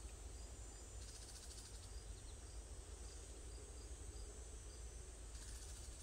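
Steady high drone of cicadas, with faint short high chirps from a small bird repeating about every half second, over a low steady rumble.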